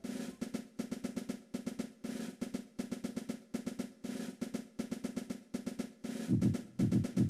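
Background music made mostly of quick snare-drum hits, a rolling drum pattern over a steady low note, with heavier low drum hits near the end.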